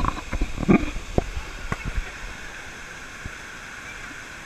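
Waterfall pouring into a pool, a steady rush of water, with a quick run of knocks and thumps in the first two seconds.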